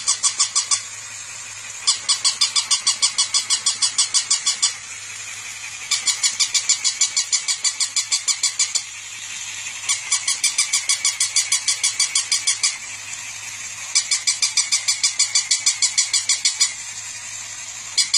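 Electric plush toy dog barking through its small speaker: bursts of rapid, high-pitched yaps, each about three seconds long and coming every four seconds. Between the bursts its walking motor whirs steadily.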